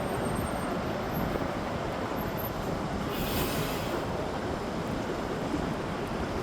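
Steady rumble of city street traffic, with a short hiss about three seconds in.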